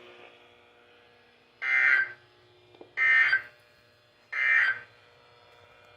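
Emergency Alert System end-of-message data bursts on a National Weather Service radio broadcast: three short, buzzy digital bursts about a second and a half apart over a faint steady hum, signalling the end of the warning message.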